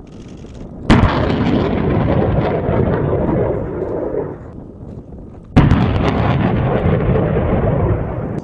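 Two rockets launching from an M142 HIMARS multiple rocket launcher, about five seconds apart. Each begins with a sudden loud blast, followed by about three seconds of rocket-motor noise that fades away.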